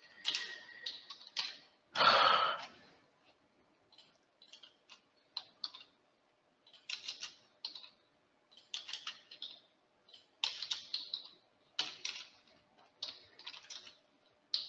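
Computer keyboard typing in short bursts of clicking keystrokes, with a louder brief noise about two seconds in.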